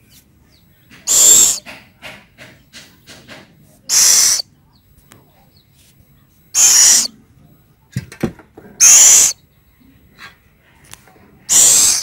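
Scops owl chicks giving five harsh, raspy hissing calls, each about half a second long and a couple of seconds apart. These are the food-begging calls of hungry owlets.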